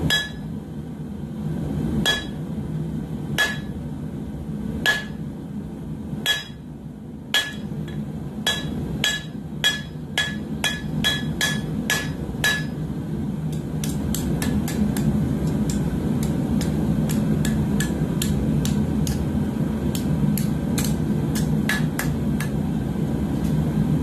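Hand hammer striking red-hot coil-spring steel on an anvil's hot-cut hardy to cut off the excess, each blow ringing the anvil. The blows come slowly at first, quicken to two or three a second, then give way to a faster run of lighter, duller blows, all over a steady low rumble.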